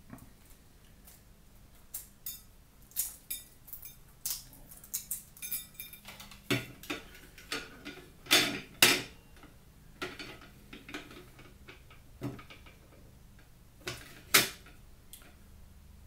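Light clicks, taps and clatters of a boiled egg being shelled and then cut in a plastic wire egg slicer on a ceramic plate, with the loudest knocks about eight seconds in and again near the end.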